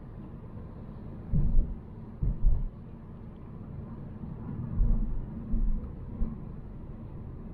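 A Volvo C70 driving: a steady low rumble of road and engine noise, broken by several short, low thumps.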